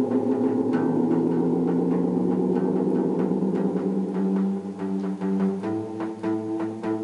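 Acoustic-electric guitar played through an EarthQuaker Devices Rainbow Machine effect pedal: a steady groove of quick strummed strokes over ringing, effected chords. The chord changes about five and a half seconds in.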